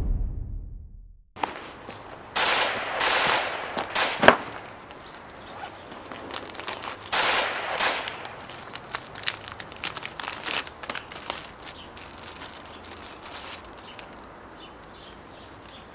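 Music fades out at the start. Then the plastic packaging of an Israeli emergency bandage is torn open and handled: several loud ripping, rustling bursts with one sharp snap, then irregular crinkles and clicks that thin out near the end.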